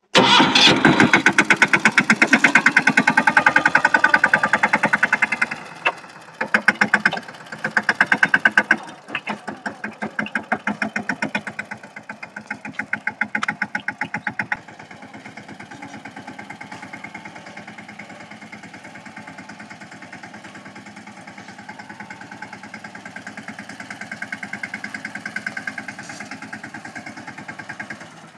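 Small Mahindra Yuvraj NXT tractor's single-cylinder diesel engine starting with a sudden loud clatter and running with a heavy, even pulse. Its speed and loudness change over the first fifteen seconds or so, and then it runs more quietly and steadily, farther off.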